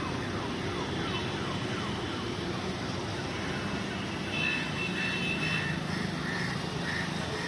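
Busy street traffic din with quick, repeated falling siren-like tones, giving way about halfway through to a pulsing, alarm-like beeping.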